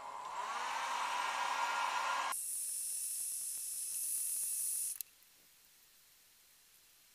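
Hand-held hair dryer blowing, a rushing airflow with a steady motor whine. A little over two seconds in it switches abruptly to a thinner, high hiss, and about five seconds in it is switched off and stops suddenly.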